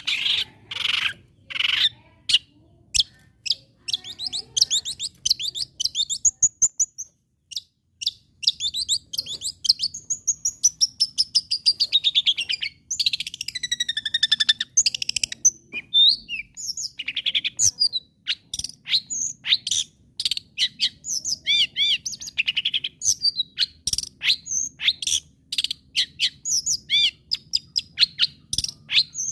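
Long-tailed shrike (cendet) singing a fast, varied song of short chirps and whistles, with harsh bursts near the start and a run of whistles gliding down in pitch about halfway through.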